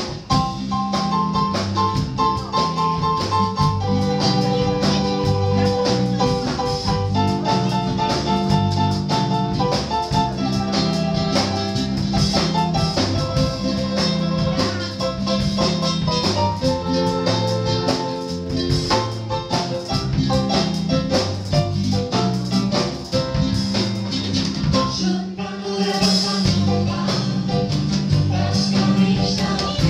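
Live band playing a bossa nova-style schlager on acoustic guitar, upright bass, drum kit and digital piano, in an instrumental passage where the melody moves in long held notes over the steady groove. Singing comes back in near the end.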